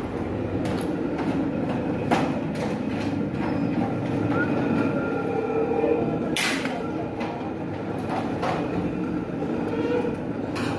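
Metal clinks of an engine's timing chain and parts being handled, a few sharp clicks, the loudest about six seconds in. Under them runs a steady rumbling background noise.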